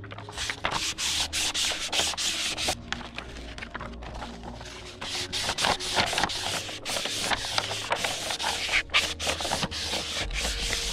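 Paper backing being peeled off a sheet of Grizzly skateboard grip tape, with hands pressing and rubbing on the sheet: irregular crackling, rustling and scratching.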